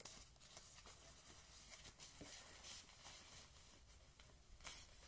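Faint, irregular rustling and crinkling of white paper wrapping being handled as a doll is unwrapped by hand.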